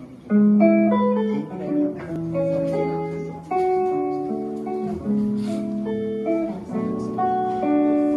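Jazz guitar playing a slow chord-melody introduction to a ballad, with ringing chords and single notes.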